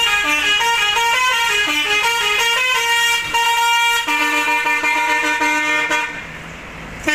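Bus 'basuri' telolet horn, a multi-tone musical air horn, playing a tune of stepped notes. It breaks off about six seconds in and starts again right at the end.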